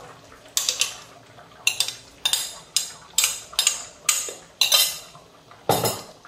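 A spoon scraping cooked beans out of a container into a pot: about ten quick scraping strokes, roughly two a second, with a heavier knock near the end.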